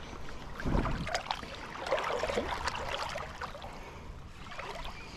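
Creek water sloshing and splashing, with scattered small knocks and clicks and a low thump about a second in.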